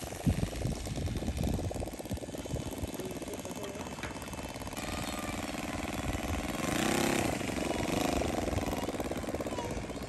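Engine of a large-scale radio-control F4B biplane model running at low throttle through its landing rollout and taxi, its pitch rising and falling briefly about seven seconds in.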